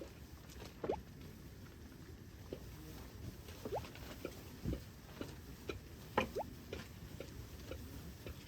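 Food simmering in a pot: irregular small pops and plops of bubbles bursting, a few with a short rising pitch, over a soft low bubbling.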